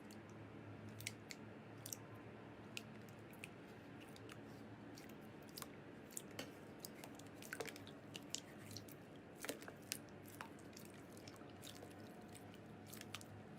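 Slime being pressed and worked by hand, faintly: scattered small clicks and crackles, a few each second, over a low steady hum.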